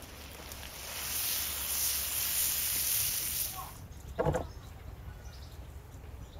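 Hot fried meat and potatoes sizzling as they slide out of a black steel pan into a metal serving tray, a loud hiss lasting about three seconds. A little after four seconds in there is a single knock as the metal tray is set down on wooden blocks.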